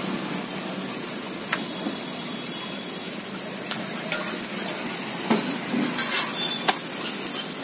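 Paratha sizzling on a large flat griddle (tawa), a steady hiss, with a few short sharp clicks and knocks scattered through it.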